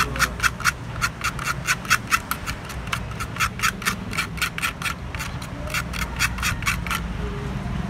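Rapid back-and-forth rubbing or scrubbing strokes, about six a second, which stop about seven seconds in.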